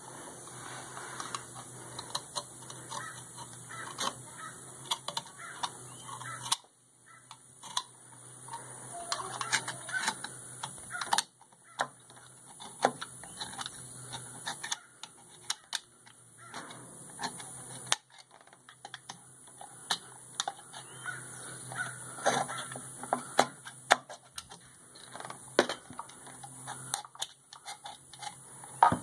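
Old knife blade scraping old gasket material off the flange of a metal tractor thermostat housing, in irregular scrapes and clicks.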